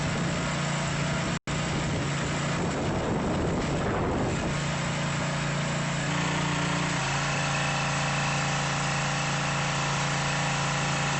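Small gas engine of a pressure washer running steadily. The sound drops out very briefly about a second and a half in, and the tone shifts a little partway through.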